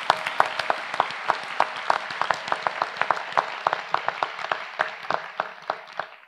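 Large audience applauding: a dense, even clapping with a number of sharper single claps standing out. It stops suddenly near the end.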